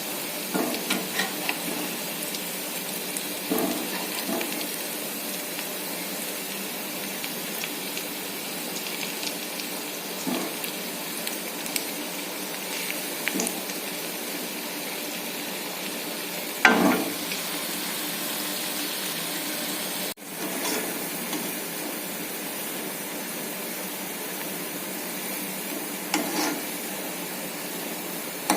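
Banana-flower fritters sizzling steadily in hot frying oil, with a metal spatula knocking and scraping the pan now and then. The loudest clank comes about two-thirds of the way through.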